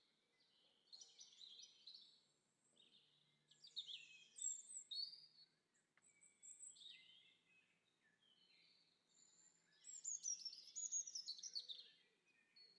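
Faint bird calls: high chirps and quick falling trills in several short bouts, the loudest bout about ten seconds in.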